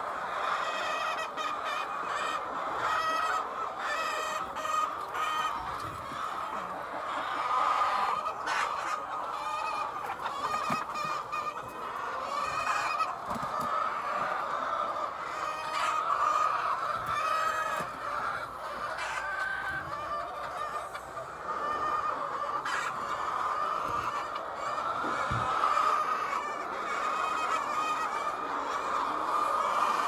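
A flock of white layer hens clucking and calling continuously, many birds at once.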